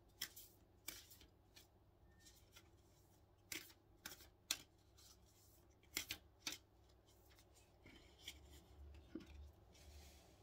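A deck of oracle cards shuffled and handled: a scatter of sharp card clicks and slaps at irregular intervals.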